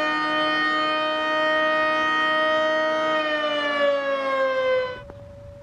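Federal Electric Fedelcode Model 7 outdoor warning siren sounding a steady alert tone, which starts to wind down and fall in pitch about three seconds in. Near the end it drops abruptly to a much fainter steady tone.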